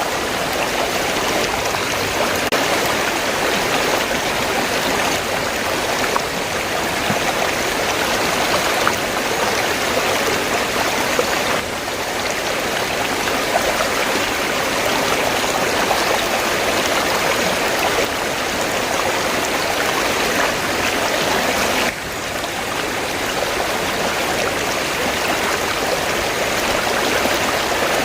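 River water flowing and rushing steadily, a continuous even wash of water noise. The sound shifts abruptly twice, about 12 and 22 seconds in.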